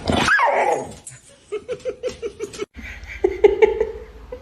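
A dog vocalizing: a loud yelp that rises and falls in pitch, then a quick run of short pitched sounds, about five a second, broken briefly a little past the middle.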